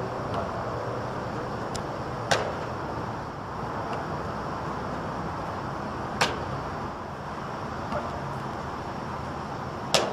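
Sharp slaps of a football being caught, three loud ones about four seconds apart with fainter taps between, over a steady rushing background noise.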